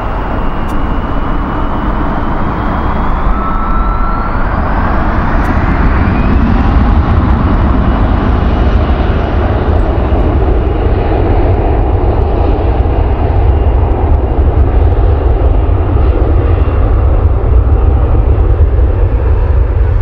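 Jet airliner engines at high thrust, a loud rumble and roar that builds over the first several seconds. A turbine whine rises in pitch partway in, as the engines spool up for a take-off run.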